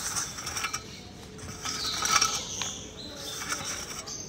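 Flat wooden board scraping over a dry sand-and-cement mix spread on a concrete roof, levelling it in rough strokes, the loudest about two seconds in.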